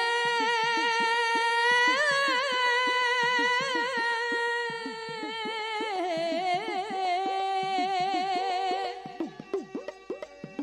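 Dhadi music: a long held melody note with a slight waver that steps down in pitch about six seconds in, over quick strokes of dhadd hourglass drums. Near the end the held note stops and the drum strokes carry on alone.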